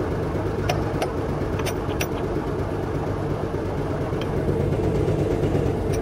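Heavy diesel engine running steadily at idle, with four short sharp clicks of metal on steel in the first two seconds.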